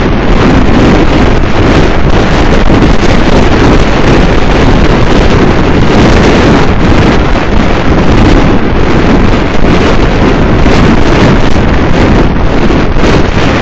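Loud, steady wind buffeting the microphone of a 360-degree camera on a moving car, with the car's running noise underneath.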